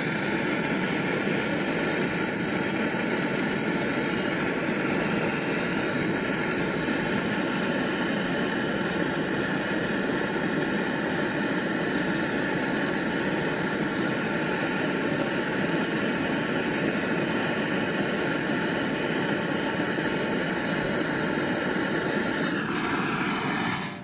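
Handheld butane torch burning with a steady hiss, its flame on the copper pipe at a refrigerator compressor to unsolder the pipe for refrigerant charging. The flame stops just before the end.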